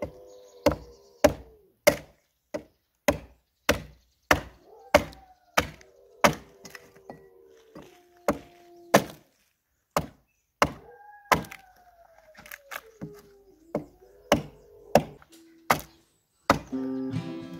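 Axe chopping into a pine log at a steady pace, about one and a half strokes a second, taking off the wood between vertical cuts to hew a roof board. Dogs howl in the background with long falling moans, and acoustic guitar music comes in near the end.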